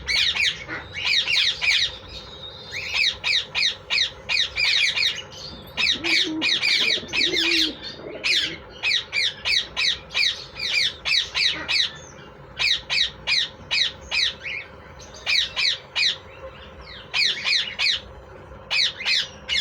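Green ringneck parakeets squawking: short, shrill calls repeated rapidly in runs of several, with brief pauses between the runs.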